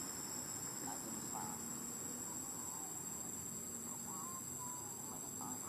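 Insects droning steadily, a constant high-pitched hum, with a few faint short squeaky calls, mostly about four seconds in.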